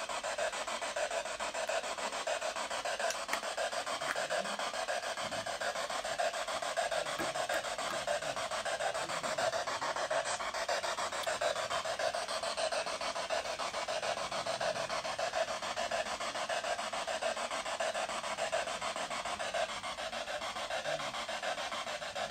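Steady hiss over quiet room tone, with no distinct events.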